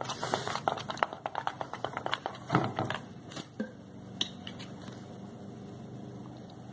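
Plastic spoon stirring a thick mixture of glue and shaving cream in a plastic bowl, a quick run of clicks and scrapes against the bowl for about three seconds, then it goes quieter, leaving a faint low hum.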